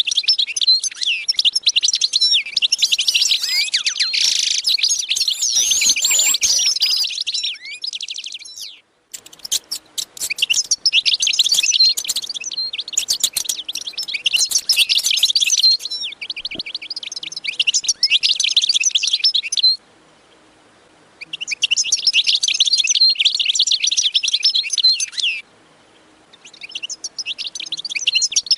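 A dense chorus of small birds chirping rapidly and continuously, cutting off abruptly three times for a second or so before resuming.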